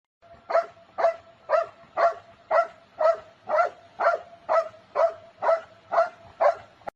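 A dog barking in a steady, even rhythm, about two short barks a second, thirteen in all.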